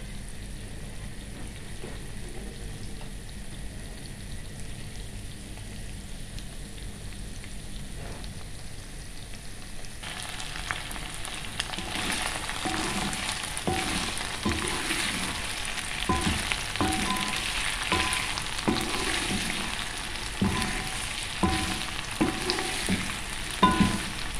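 Chicken pieces frying in honey garlic sauce in a pot: a low sizzle that turns much louder about ten seconds in. From then on a wooden spatula stirs, with irregular knocks and scrapes against the pot.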